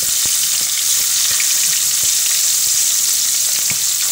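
Pieces of salted dried traíra fish deep-frying in hot oil in a pot: a steady sizzle with small scattered crackles.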